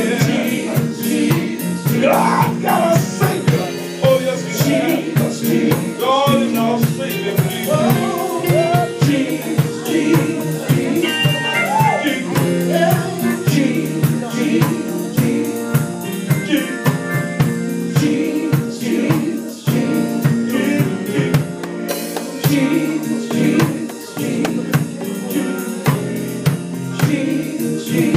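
Live gospel praise music: singing over a drum kit and band, with steady beats and the voice rising and falling through the phrases.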